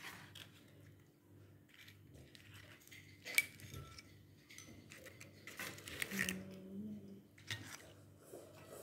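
Metal serving tongs clinking and tapping against a foil-lined metal tray and a china plate, a series of scattered sharp clicks with the loudest a little over three seconds in.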